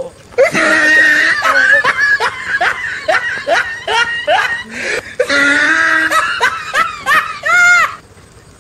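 Loud human laughter in a fast run of short bursts, with shrill cries mixed in. It stops suddenly near the end.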